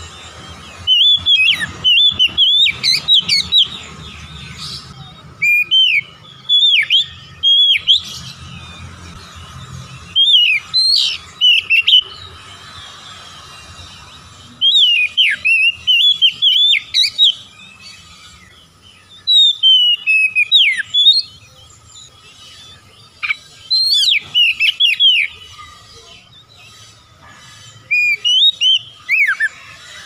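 Oriental magpie-robin singing loud, whistled phrases with quick rising and falling sweeps, in bursts of one to three seconds separated by short pauses.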